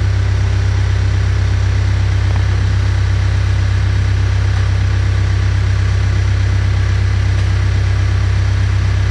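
Engine of a Case rough-terrain forklift idling steadily with a deep, even hum while its forks hold a combine rotor.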